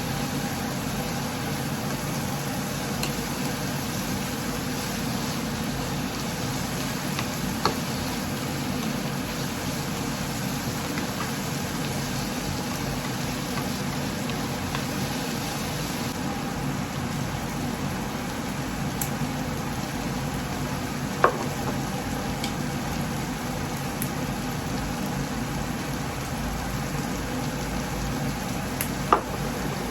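Seasoned beaten eggs frying in oil in a pan: a steady sizzle, with three sharp knocks of a utensil about 8, 21 and 29 seconds in.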